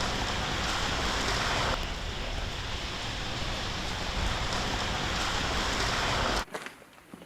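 Steady rushing outdoor noise, like wind on the microphone, that cuts off abruptly about six seconds in.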